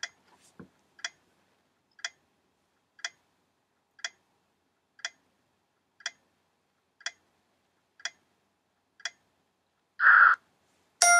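Countdown timer sound effect ticking once a second, ten even ticks. A short, louder noisy burst comes as the countdown ends, and a bright chime starts right at the close.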